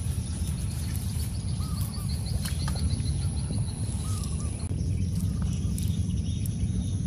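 Outdoor ambience at a weedy pond: a steady low rumble carries throughout, with a bird giving short curved chirps every couple of seconds and a rapid high trill for about two seconds in the first half.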